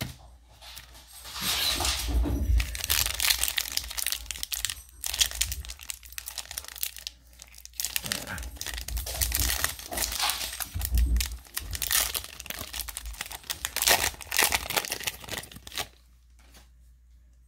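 Trading-card pack wrapper being torn open and crinkled, a run of irregular crackles and tearing that stops shortly before the end.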